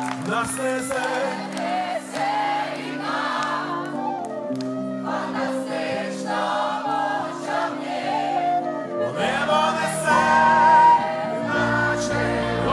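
Live choir of young voices singing a song over held instrumental chords. A deeper bass part comes in about nine seconds in and grows stronger near the end.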